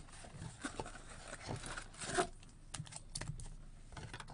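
A cardboard trading-card box being handled: a scattered run of light taps and clicks with some rustling and scraping.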